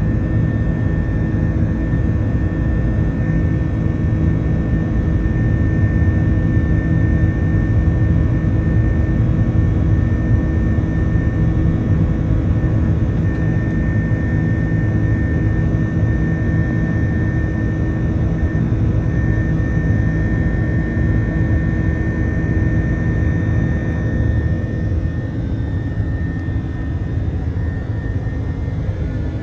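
Steady jet engine and airflow noise inside the cabin of an Airbus A330-203 in flight, from its General Electric CF6-80E1 turbofans, with a faint steady whine over the low noise. About 24 seconds in, the whine fades and the sound becomes slightly quieter.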